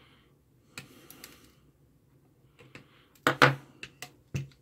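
Flush cutters snipping resistor leads off the back of a circuit board with a few sharp clicks. About three seconds in come several louder knocks as the board is turned in its holder.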